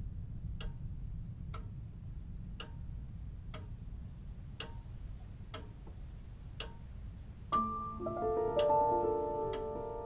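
Clock ticking slowly, about once a second, over a low steady drone in a film soundtrack. About seven and a half seconds in, sustained piano-like chords come in over the ticking.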